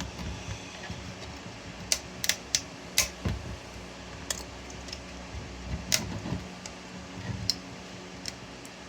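3D-printed PLA support material being pried and snapped off a print: sharp plastic clicks and cracks at irregular intervals, with light rustling and handling between them. A steady low hum runs underneath.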